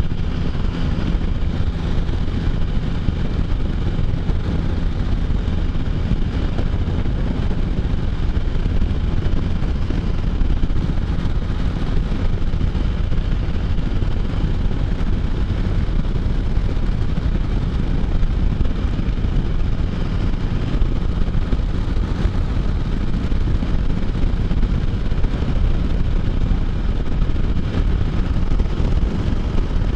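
Can-Am Spyder three-wheeled motorcycle cruising at a steady speed, its engine running evenly under a constant rush of wind and road noise.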